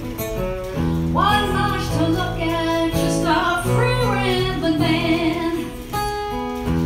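A woman singing a melody over strummed and picked acoustic guitar. Her voice stops near the end, leaving the guitar playing on.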